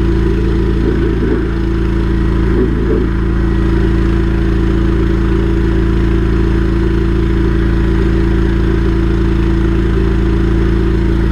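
Drain jetting machine's engine running steadily at a constant speed, driving the high-pressure pump while the drain is jetted.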